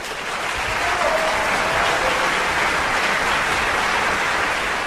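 Audience applauding steadily, a dense sustained clapping.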